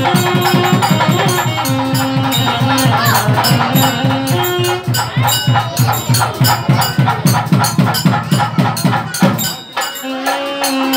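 Festive music: fast, driving percussion with a melody of long held notes over it. The drumming stops about a second before the end while the melody carries on.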